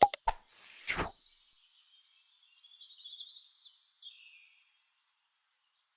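Two sharp clicks and a short whoosh at the start, then a small songbird chirping and trilling in quick high-pitched phrases, stopping about five seconds in.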